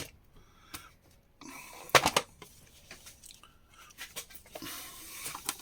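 Small loose hardware such as screws, nails and buttons clicking and rattling as it is picked through by hand, with a sharp clack at the start and a short cluster of clicks about two seconds in.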